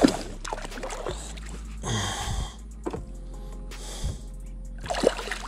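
A hooked largemouth bass splashing and thrashing at the water's surface as it is reeled up to the side of a kayak, with a sharp knock at the start. Background music plays underneath.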